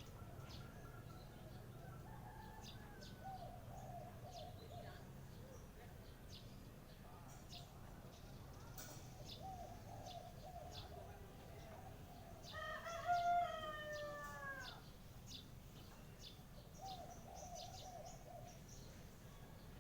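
Small birds chirping in short high notes throughout, with low cooing calls now and then. A rooster crows once, about twelve seconds in, the loudest sound, its call falling in pitch at the end over about two seconds.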